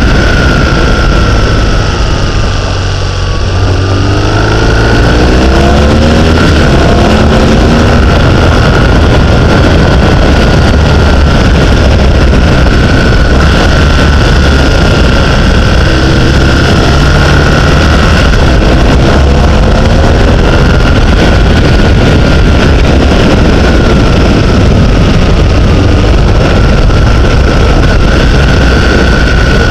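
Heavy wind buffeting on a vehicle-mounted camera during a fast downhill run, with an engine note rising in pitch twice as the vehicle speeds up out of bends, about four seconds in and again around twenty seconds in.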